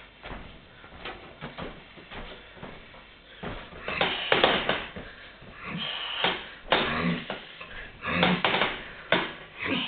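A dumbbell loaded with iron weight plates knocking and clanking as it is handled and lifted off the rack, in a few irregular knocks from the middle on.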